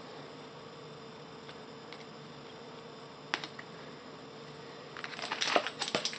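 Low steady room hum with a single sharp click about three and a half seconds in. From about five seconds on comes an irregular rustling and clicking as a stack of glossy Topps Chrome trading cards is handled and shuffled in the hands.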